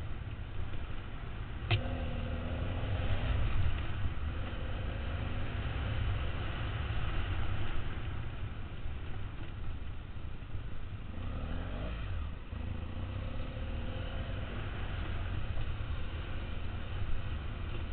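Dual-sport motorcycle engine running on a dirt trail, rising and falling in pitch with the throttle, heard through heavy wind rumble on a helmet-mounted camera.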